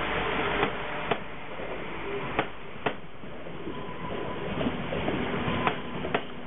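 Irish Rail Intercity Railcar diesel multiple unit moving through a station: a steady rumble of engines and wheels, broken by sharp clicks in pairs about half a second apart, three pairs in all, as the bogies' wheelsets cross a rail joint.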